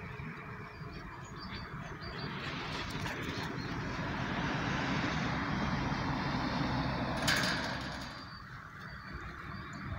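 A road vehicle passing by, its noise swelling over a few seconds and then fading, with a brief sharp noise about seven seconds in.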